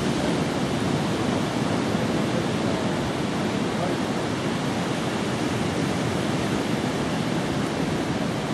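Sea surf: a steady, even rushing wash with no distinct events.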